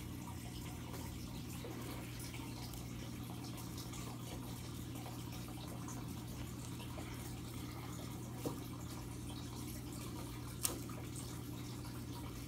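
Aquarium air stone bubbling and filter water trickling, over a steady low hum from the pump. Two short sharp clicks in the second half, the second louder.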